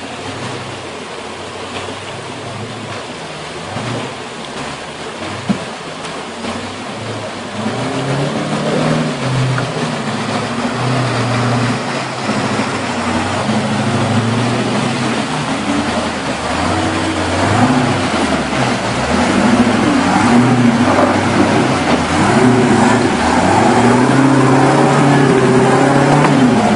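Truck engine running under load, its pitch climbing and dropping repeatedly as it revs and changes gear, growing louder about a third of the way in.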